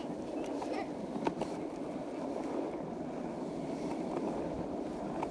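Longboard wheels rolling fast over asphalt: a steady rolling noise with a few short clicks, the clearest about a second in.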